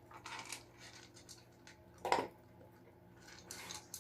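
An American bulldog eating from her food bowl: scattered clinks and crunches, the loudest about two seconds in.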